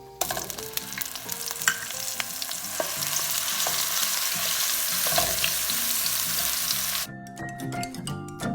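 Onion paste frying in hot oil with whole spices in a pan, a steady sizzle with a few scattered clicks of stirring. The sizzle cuts off about seven seconds in and background music follows.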